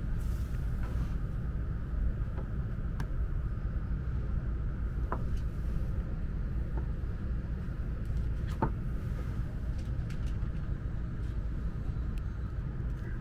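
Steady low hum in the cabin of an N700S Shinkansen standing at a station, with a few faint clicks.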